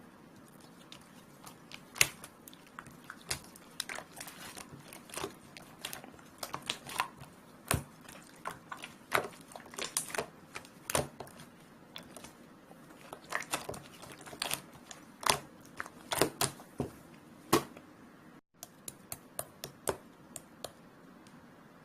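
Slime being squeezed and poked by hand, making irregular sharp clicks and pops, several a second at times, with a brief break in the sound about eighteen seconds in.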